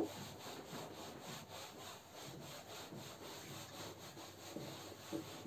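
Whiteboard duster rubbing back and forth across a whiteboard, erasing marker writing in quick, faint, repeated strokes.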